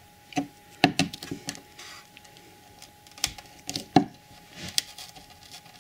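Scattered sharp clicks, taps and light scrapes of a flat-bladed tool worked under the edge of a model railway platform to prise it up. The platform stays stuck, held by glue around its edges.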